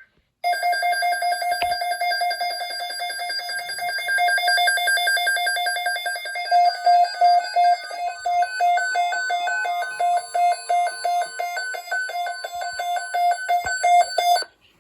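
Weather radio receiver's electronic alert alarm beeping in rapid, even pulses, which change to a choppier, slower pattern about eight seconds in: the alarm that announces an incoming weather alert before the voice message.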